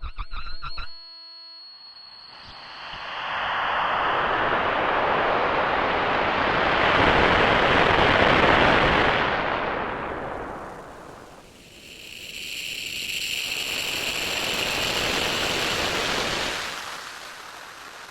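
Granular synthesizer texture from a four-layer granular instrument in UVI Falcon: a brief stuttering pitched figure, then two long swells of dense noisy wash, the second topped by a bright steady ringing band before it fades back down.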